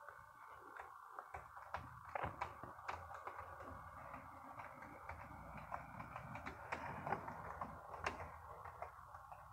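HO scale model diesel locomotive running along the track: a faint, steady electric motor whine with a low rumble under it, and scattered sharp clicks as the wheels cross rail joints and switches.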